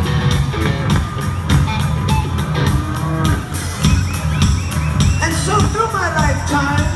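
Alternative rock band playing live, with electric guitar, bass and drums, recorded from within the crowd. About five seconds in, voices singing and shouting join over the band.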